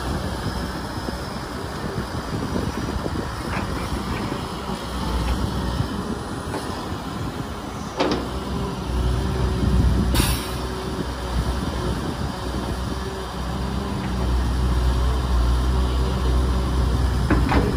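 Kobelco SK250 hydraulic excavator's diesel engine running steadily with a low drone as it digs and loads soil into a dump truck. The engine works harder and louder from about fourteen seconds in. There are a few clanks along the way and a short hiss about ten seconds in.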